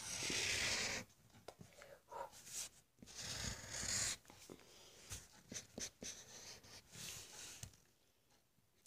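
A pen or pencil scratching over paper while drawing: several spells of strokes, each lasting about a second, with short pauses and light taps between them.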